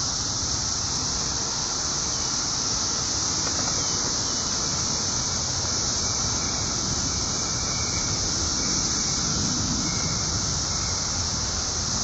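Dense chorus of periodical cicadas (17-year Brood XIII), a loud, steady, unbroken high-pitched drone.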